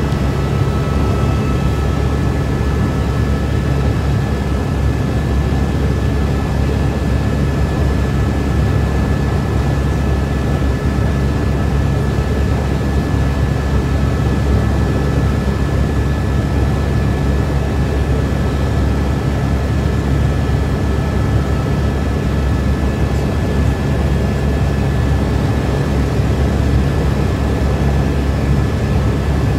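Helicopter engine and rotor noise heard from inside the cabin: a steady, loud drone with a strong low hum and a couple of faint steady whines above it.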